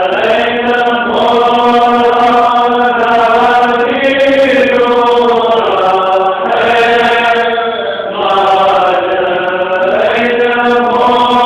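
Monks chanting a Syriac Orthodox Lenten prayer together. It is sung in long, drawn-out phrases with brief breaks between them.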